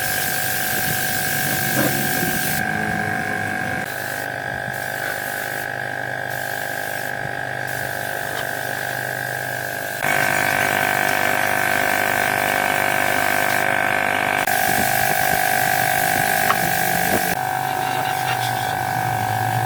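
A small electric motor whining steadily, with abrupt jumps in pitch and level every few seconds.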